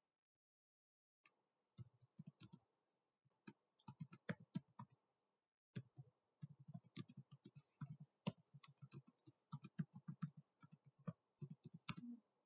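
Computer keyboard being typed on in quick runs of keystrokes, starting about a second in, with a short break about five seconds in.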